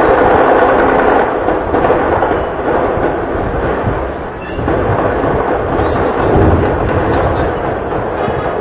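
Continuous rattle of distant gunfire from street clashes, many rapid shots running together and echoing across the city.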